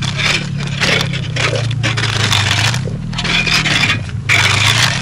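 Hand ice auger boring through thick ice: its steel cutting blades scrape and crunch ice chips in turn after turn, with a few short breaks between strokes.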